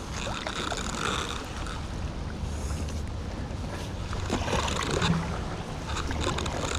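A passing canal boat's engine running steadily with a low drone, under a haze of wind and water noise.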